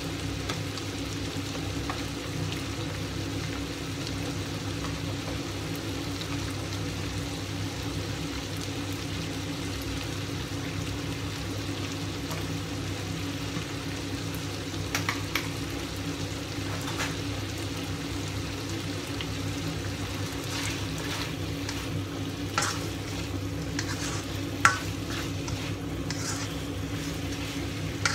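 Eggplant and minced pork frying in a wok, a steady sizzle over a steady low hum. From about halfway on come scattered sharp clicks and pops, and near the end a spatula stirs against the wok.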